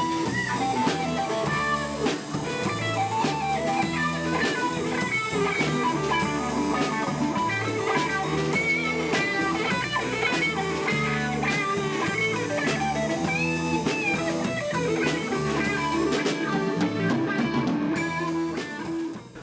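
Rock band playing: electric guitar lines over a drum kit with a steady beat.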